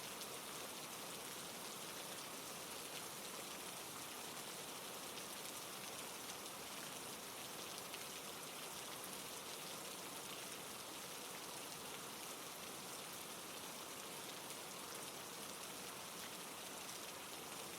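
Steady rainfall, a faint even hiss of drops with fine pattering.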